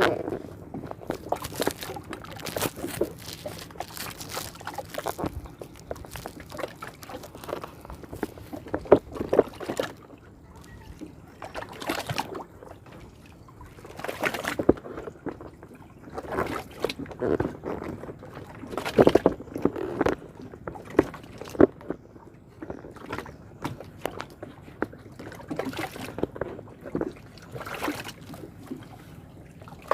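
Water sloshing and splashing in irregular bursts every second or two, with no engine or steady tone, around a small boat on a river.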